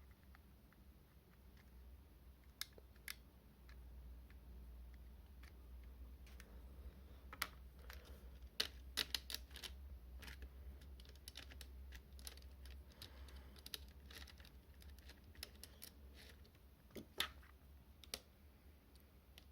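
Scattered light clicks and taps of small plastic parts being handled, irregular and thickest in the middle, over a faint low hum.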